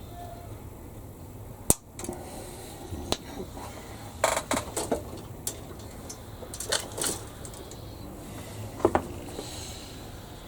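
Sharp clicks and taps of small plastic model-kit parts and hobby tools being handled and set down on a workbench. They come singly and in short clusters: a loud click about two seconds in, and a double knock near the end.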